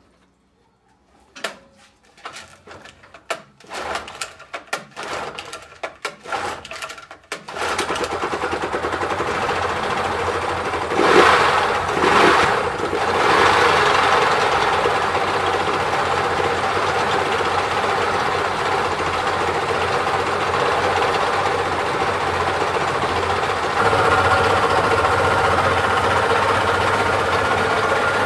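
A three-cylinder two-stroke Yamaha 30 outboard engine is started. It sputters and coughs unevenly for a few seconds, catches about seven seconds in and settles into steady running, with two quick revs soon after and a step up in speed near the end. Its running carries a noise that the mechanics put down to worn crankshaft bearings.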